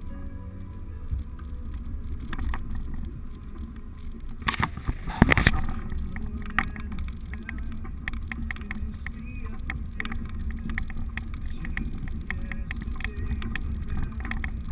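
Low engine drone heard from inside a vehicle's cab as it crawls over a rough dirt trail, with frequent clicks and rattles, and a burst of loud knocks and rattles around five seconds in.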